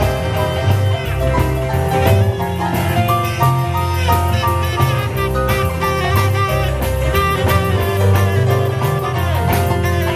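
A live band playing an instrumental passage: a steady bass line and drum kit under a melodic lead with bending notes.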